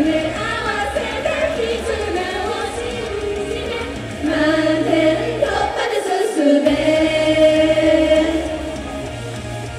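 Female idol group singing together over backing music. The bass drops out briefly a little past the middle, then the voices hold one long note.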